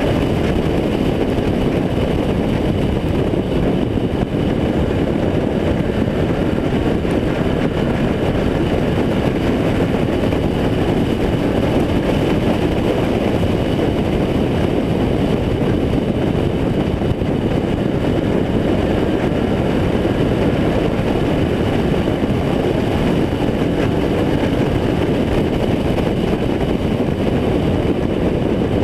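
Race car engine running at racing speed, heard from inside the car's cockpit: a loud, steady drone without let-up.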